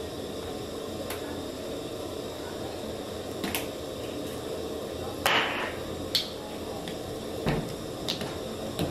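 Empty non-stick frying pan heating on the stove over a steady low hum, with scattered sharp ticks and one short hiss about five seconds in as the last water drops in the pan spit and dry off.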